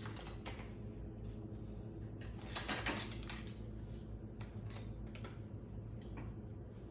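Dishes and cutlery clinking and knocking as a dishwasher is unloaded: scattered light clinks, with a louder cluster about two and a half to three seconds in, over a faint low hum.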